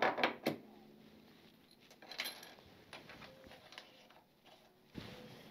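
Metal clicks and clinks as the top triple clamp is set down over the motorcycle's steering stem and the top stem nut is put on by hand. There is a quick cluster of clicks at the start, a brighter clink a little over two seconds in, faint ticks after it, and a dull knock near the end.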